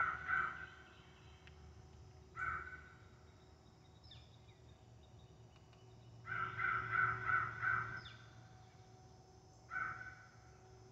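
Electronic crow call playing recorded crow caws: a quick string of about six caws followed a couple of seconds later by a single caw, the same sequence repeating on a loop.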